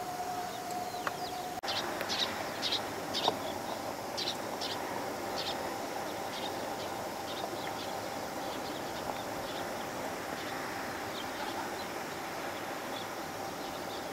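Short high bird chirps, several in quick succession between about two and five seconds in, with fainter ones later, over a steady outdoor hiss. Near the start a steady hum cuts off suddenly.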